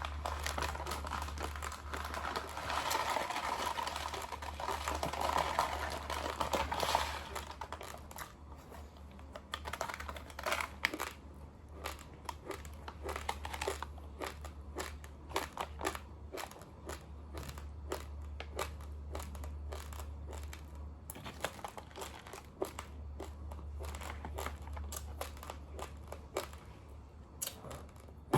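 Raw long-grain rice being eaten close to the microphone: a dense rustling for the first several seconds, then a long run of sharp, irregular crunching cracks as the dry grains are bitten and chewed. A steady low hum runs underneath.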